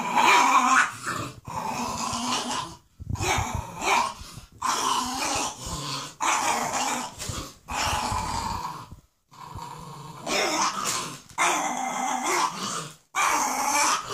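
A French bulldog and a Staffordshire bull terrier growling as they play-fight over a toy. The growls come in a series of rasping bouts about a second long, broken by short pauses.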